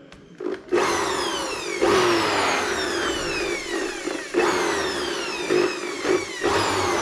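Makita handheld electric blower switched on about a second in, blowing dust out of a laptop's keyboard bay. It runs with a whine whose pitch jumps up and slides down several times as the trigger is worked.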